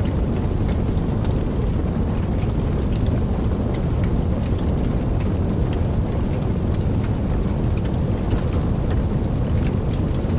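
Wood fire burning: a steady low roar of flames with frequent small sharp crackles and pops.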